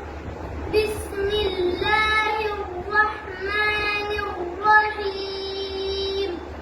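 Melodic Quran recitation (tajwid) by a male reciter: a single high voice chanting in long, ornamented melodic phrases. It starts about a second in and ends on a long held note.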